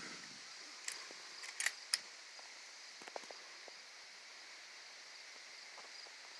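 A few faint, sharp clicks about one to three seconds in, over a quiet outdoor background: the small sounds of a firearm being handled and readied just before a shot.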